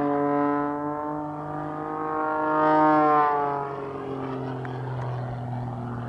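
Pitts Special aerobatic biplane's piston engine and propeller making a steady, buzzing drone as it flies its routine. The drone swells to its loudest about three seconds in, then fades.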